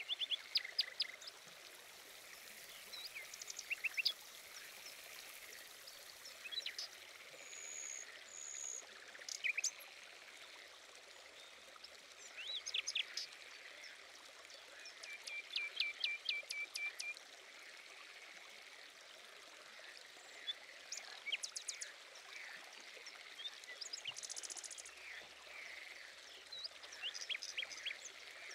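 Small birds chirping and calling in short scattered bursts over a steady rush of running water. A little past the middle comes a rapid, even trill.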